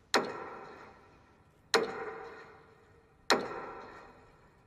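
Metronome beating slowly over a public-address system for a minute of silence, three strokes about one and a half seconds apart, each echoing out.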